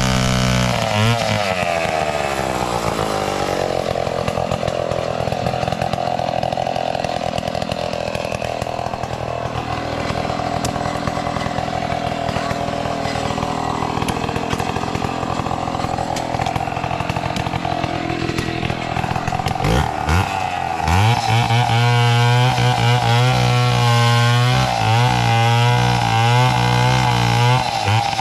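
Two-stroke chainsaw cutting a dead coconut palm trunk. The engine drops in pitch in the first few seconds and runs steadily lower under load. About twenty seconds in it revs back up, its pitch rising and falling repeatedly with the throttle.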